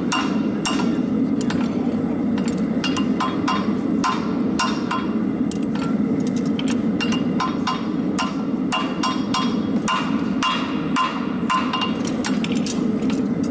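Farrier's hand hammer striking a steel keg horseshoe held in tongs on an anvil: a quick, uneven run of ringing metal-on-metal blows, two to four a second, over a steady low hum.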